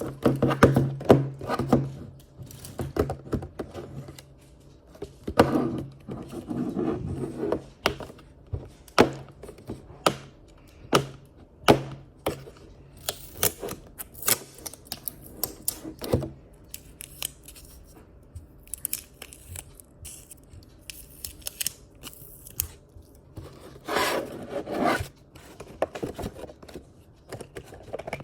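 Blind-box toy packaging being handled and opened by hand: irregular clicks, scrapes and rubbing of cardboard, with crinkly stretches of plastic wrapping.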